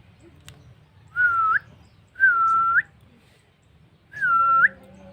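A person whistling three times, each about half a second: a clear, level note that flicks upward at the end, used as a lure to prompt a Javan myna to call.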